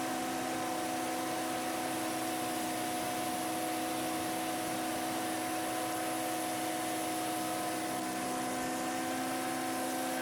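Small Ford tractor engine running at a steady speed, with an even hiss behind it.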